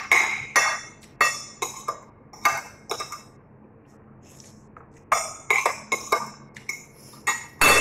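Metal spoon and fork clinking and scraping against a white plate while eating: a run of short clinks, a pause of about two seconds in the middle, then another run.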